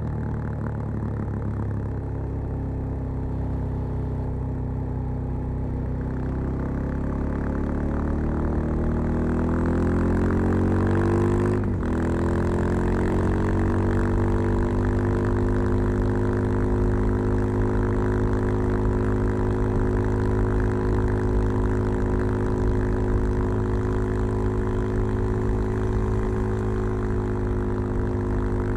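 Suzuki DR-Z 400 Supermoto's single-cylinder four-stroke engine, breathing through a Keihin FCR 39 carburettor and a LeoVince V3 silencer with its dB-killer in, heard under way from a microphone carried on the rider. It climbs in pitch as it pulls, breaks briefly about twelve seconds in, then holds a steady pitch.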